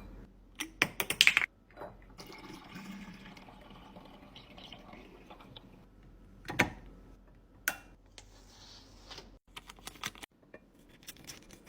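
Seasoned rice vinegar being poured from its bottle through a funnel into a glass jar, a faint steady trickle. Sharp clicks and taps come before and after the pour, with a cluster of them near the end.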